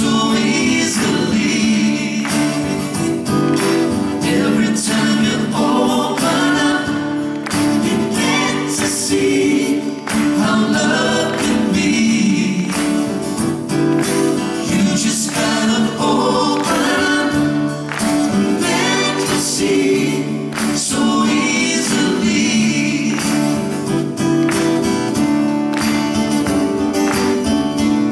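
Men's voices singing together in harmony over strummed acoustic guitars, a live song performance.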